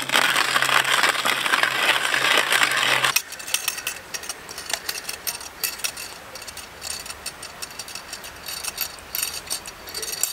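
A loud, even rushing hiss for about three seconds, cut off abruptly. Then a stainless steel hand-crank burr coffee grinder crunches freshly roasted coffee beans as a fast, irregular run of clicks and crackles.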